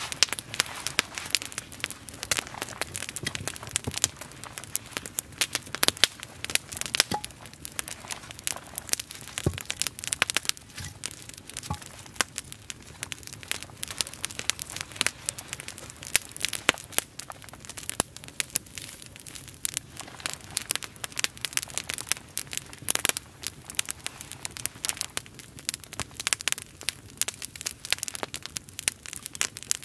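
Wood campfire crackling, with many irregular sharp pops and snaps from the burning sticks.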